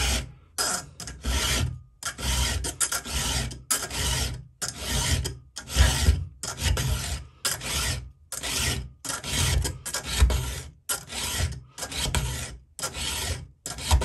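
Round chainsaw file rasping across the steel cutter of a chainsaw chain in repeated strokes, about three every two seconds, filing back a damaged cutter.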